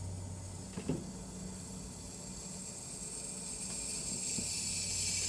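Xtool F1 Ultra laser engraver making a high hissing sound that swells over the last two seconds, over a low steady hum, with a small knock about a second in. The hiss comes as the machine's blue light moves on its own without being touched, a fault the owner cannot explain.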